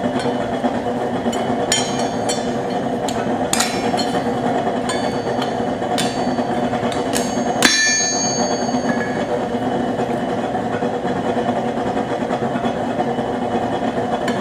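Hand hammer striking half-inch rebar on an anvil, about a dozen irregular ringing blows. The last and loudest comes near eight seconds in and rings on, then the hammering stops. The steady roar of a propane forge burner runs underneath throughout.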